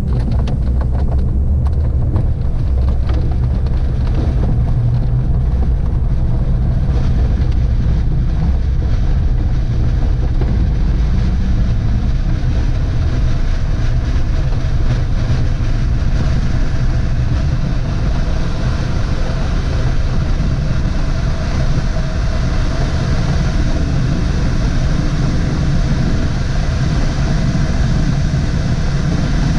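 Inside the cockpit of a DG505 glider on an aerotow takeoff: the wheel rumbles and knocks over the ground during the takeoff roll. In the second half this gives way to a steadier rush of air over the canopy as the glider lifts off.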